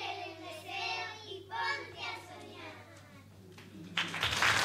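Young children's voices on stage in short phrases, tagged as child singing. About four seconds in, the audience starts applauding loudly.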